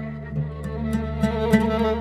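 Instrumental music in an oriental style on string instruments: picked notes and a melodic line over a low steady drone.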